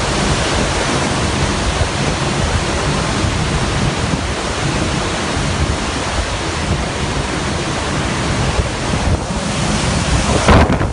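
Hurricane wind blasting across the microphone: a loud, dense, unbroken rush of noise, with harder buffets near the end.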